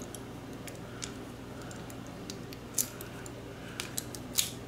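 Light metallic clicks and clinks from a metal grease gun coupler being turned over and worked in the hands, a few sharper clicks standing out in the second half, over a steady low hum.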